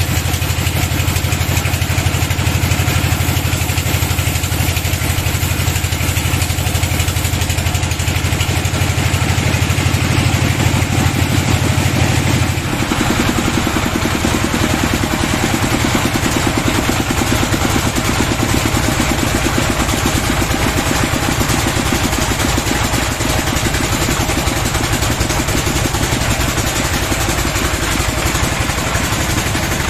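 Sawmill bandsaw machinery running steadily with an engine-like drone. About 13 seconds in, the deep low hum cuts out and the machine keeps running with a changed, lighter tone.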